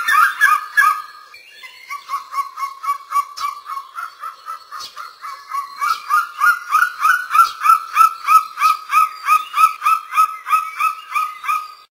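An eagle calling in a long, rapid series of short rising notes, about four a second. The notes are fainter at first and louder from about six seconds in.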